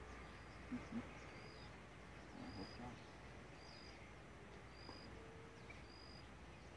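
Faint, high chirp repeated evenly about once a second, from a small animal, with two soft low thumps about a second in.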